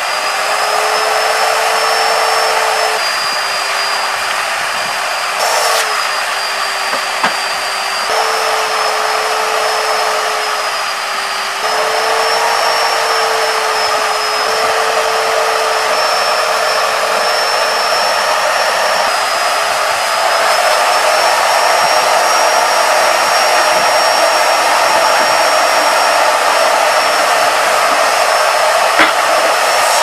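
Wet/dry shop vacuum motor running steadily with a high whine while its hose sucks up fine white powder; the pitch steps slightly up and down every few seconds as the load on the nozzle changes, and the motor cuts off abruptly at the end.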